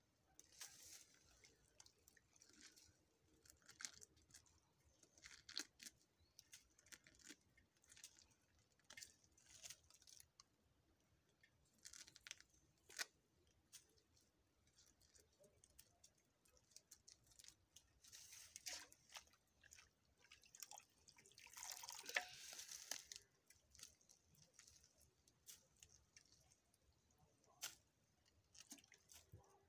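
Faint, irregular tearing and squelching of wet feathers being pulled by hand from a slaughtered hen, with a longer stretch of rustling about three-quarters through.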